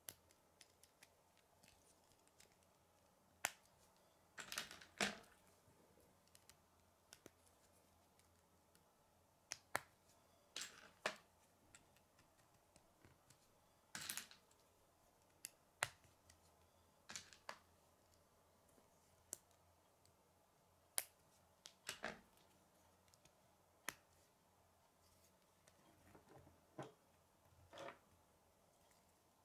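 Plastic K'nex rods and connectors clicking as they are snapped together by hand: short, sharp clicks at irregular intervals, sometimes two or three in quick succession.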